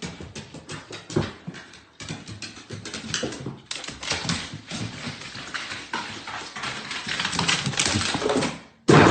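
A dog moving about with many quick clicks and taps, like claws on a hard floor. The sound changes abruptly twice in the first four seconds.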